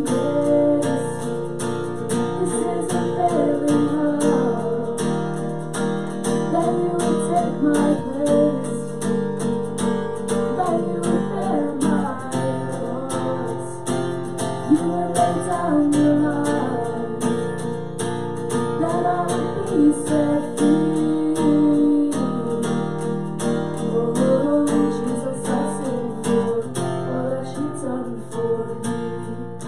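Acoustic guitar strummed steadily, with a woman singing over it at times.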